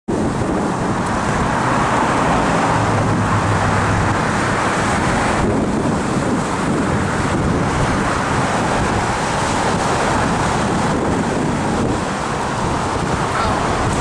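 Steady wind buffeting the microphone over waves washing against the shore.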